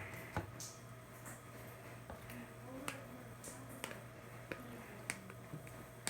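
Small sharp sticky clicks and smacks, irregular, about a dozen in all, as hands scoop and scrape thick liquid soap into a bowl, over a low steady hum.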